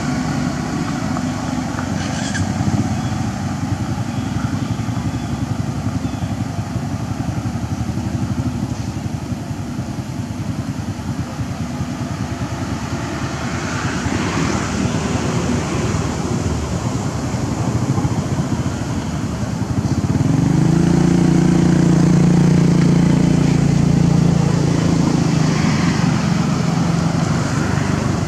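Motor vehicles running nearby, a steady engine-and-road rumble. About two-thirds of the way in, a motor vehicle's engine close by gets louder and runs at a steady pitch for several seconds.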